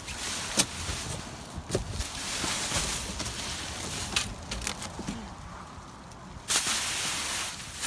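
Things being handled and moved aside in a dumpster: rustling with scattered sharp clicks and knocks, then a louder rushing noise from about six and a half seconds in.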